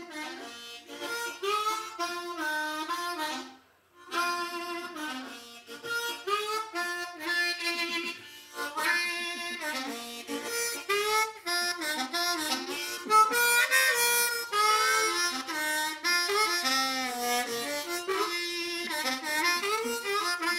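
Harmonica held in cupped hands, playing a melodic tune of held notes and short runs, with a brief break about three and a half seconds in.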